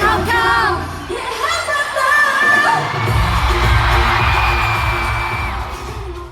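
Live K-pop concert music: female voices singing a pop song over a loud amplified backing track with heavy bass, as heard in the arena, with a long held high note in the middle.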